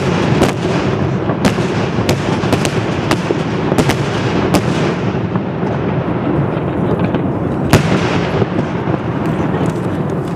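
Aerial fireworks shells going off in a large display: sharp bangs come every half second or so over a continuous rumble, thinning out after about five seconds, with one more loud bang near the end.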